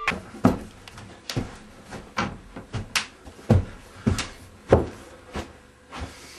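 Footsteps coming down indoor stairs: a dozen or so uneven thuds, roughly one every half second.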